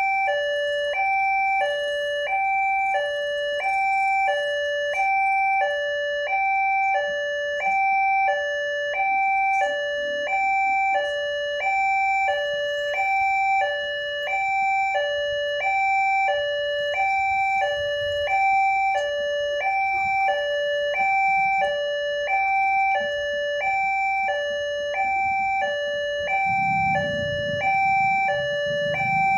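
Railway level-crossing warning alarm sounding an electronic two-tone ding-dong, about one high-low cycle a second, the signal that a train is approaching and the crossing is closed. A low rumble comes up near the end.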